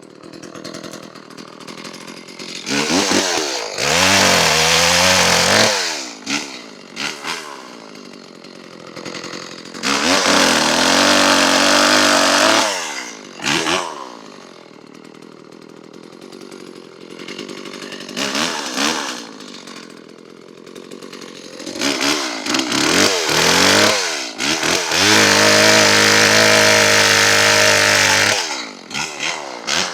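Homelite Super 2 SL two-stroke chainsaw idling and being revved to full throttle in three bursts. Each burst rises quickly in pitch and is held for about two to three seconds. The last burst comes after a few short blips and is held longest.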